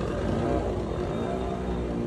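An engine running steadily, its drone wavering slightly in pitch.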